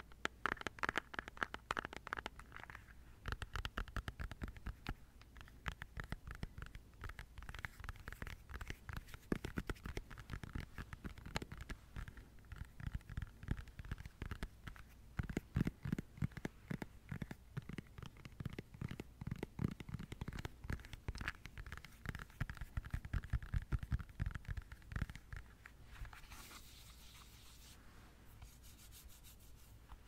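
Close-miked tapping on plastic objects: quick, irregular runs of light taps, many a second. Near the end the taps thin out and a brief rustle takes over.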